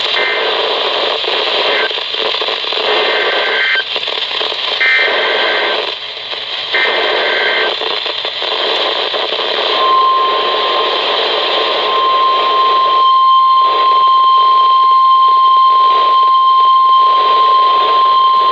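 NOAA Weather Radio EAS alert over radio static. A short data burst comes near the start, then three longer warbling SAME header bursts about two seconds apart encode the next River Flood Warning. The steady 1050 Hz warning alarm tone follows from about ten seconds in.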